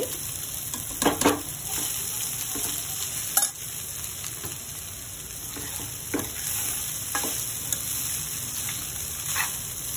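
Washed poha (flattened rice) being stirred into a hot kadai with a metal slotted spatula over a steady sizzle; the spatula scrapes and knocks against the pan now and then, loudest about a second in.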